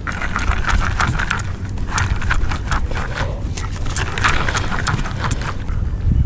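Spinning reel being cranked to retrieve a lure, its gears and handle clicking in quick runs of sharp ticks.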